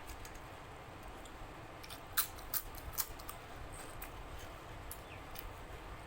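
A person chewing food with wet mouth clicks and smacks. A few sharper clicks come about two to three seconds in, over a low steady hiss.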